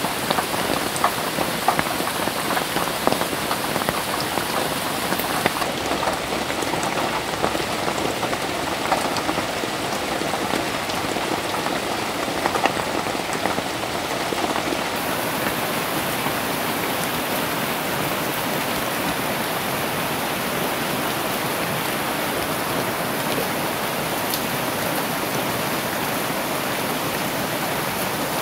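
Heavy rain falling steadily on leaves and trees. Close drops tick sharply through roughly the first half, then it settles into an even hiss.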